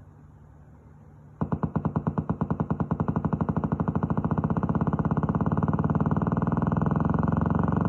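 A newly bought loudspeaker hums faintly, then about a second and a half in suddenly bursts into loud, rapid popping that speeds up into a continuous harsh buzz. This is the speaker's fault of suddenly blasting noise.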